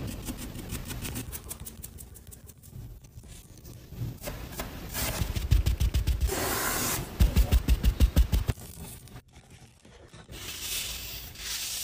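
Makeup tools rubbing, scraping and tapping on an orange's dimpled peel: fine ticking early on, then a quick run of about eight loud taps a little past the middle, and a soft brushing sound near the end.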